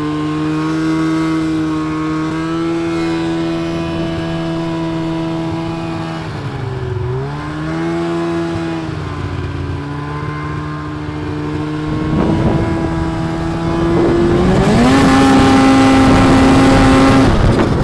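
Snowmobile engine running at a steady pace. It eases off and dips in pitch briefly about seven seconds in, picks back up, then revs up to a higher, louder steady pitch near the end.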